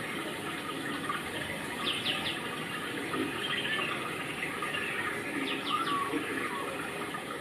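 Rain falling steadily, a constant hiss of water. Short high chirps come twice, about two seconds in and again near six seconds.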